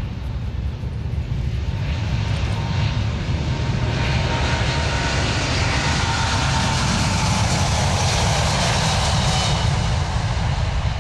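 Boeing 787-9 Dreamliner's twin turbofan engines at take-off thrust during the take-off roll, with a faint steady whine. The jet noise builds from about four seconds in and stays loud as the airliner accelerates.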